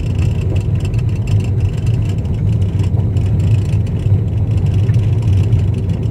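A vehicle driving on a rough gravel road surface: a steady low rumble of engine and tyres, with no distinct events.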